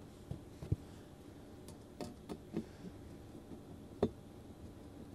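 Faint, scattered small clicks and taps of a screw, spacer and steel MOLLE panel being handled and lined up against the hole, with a sharper click about four seconds in as the screwdriver meets the screw.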